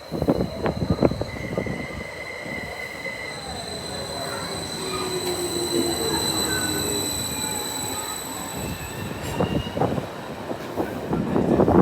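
Train moving through a station, its wheels squealing on the rails: high, steady whining tones, with a lower tone sliding down partway through.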